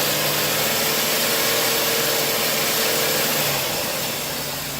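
Ford Taurus engine running held at raised revs, with a steady whooshing hiss over it, then easing back about three and a half seconds in. It is revved to check that the newly replaced alternator's charging voltage climbs.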